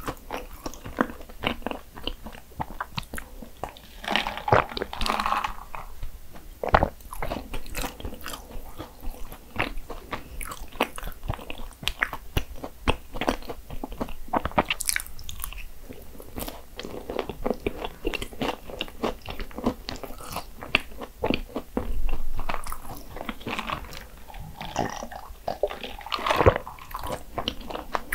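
Biting into and chewing flaky Portuguese egg tarts (natas): a steady run of crisp pastry crunches and crackles, with a few louder clusters of bites.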